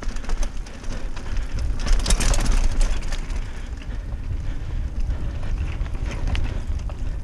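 Trek Marlin 6 hardtail mountain bike rolling fast over dirt singletrack and tree roots: tyre noise and many quick rattles and clicks from the bike. Steady wind rumble sits on the microphone. A rougher, louder stretch comes about two seconds in.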